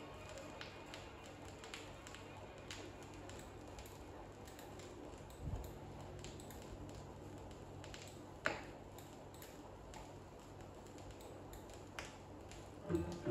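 Vinyl record surface noise as the stylus runs through the quiet groove between tracks: a steady hiss with faint hum, light crackle and a few louder pops. The next track's first notes come in at the very end.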